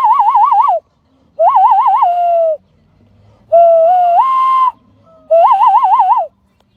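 Four loud whistled calls, each about a second long. The first and last warble up and down rapidly, the second warbles then drops to a held note, and the third holds a note and steps up in pitch.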